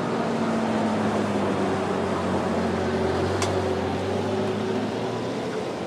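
Steady mechanical hum of a JR 211-series electric train at the level crossing, with a few held tones and one sharp click about three and a half seconds in.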